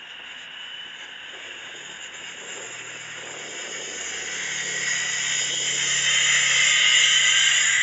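Caterpillar 988F wheel loader's engine and hydraulics running with a high whine, growing steadily louder as it raises its bucket of rock over a dump truck.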